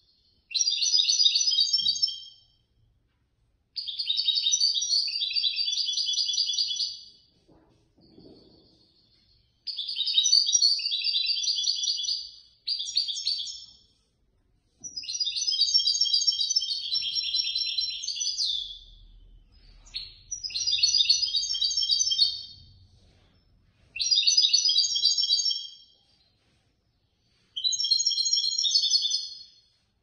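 A caged European goldfinch singing in about seven phrases of quick, high song. Each phrase lasts a second or two to a few seconds, with short pauses between them.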